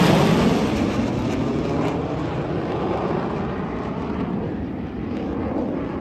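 Roar of a military display jet's engine passing overhead, loudest at the start and slowly fading as the jet flies away.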